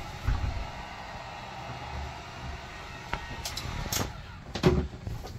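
A heat gun blowing steadily while vinyl wallpaper is heated and stretched around the rounded edge of a tabletop. A few light clicks and knocks of hands working the vinyl against the table, with one louder knock a little over four and a half seconds in.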